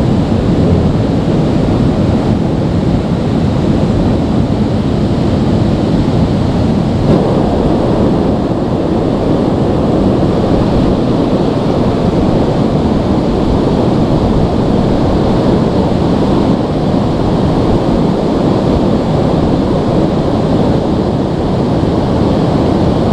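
River water rushing over rocks and through riffles, a steady, loud rush of noise with no breaks.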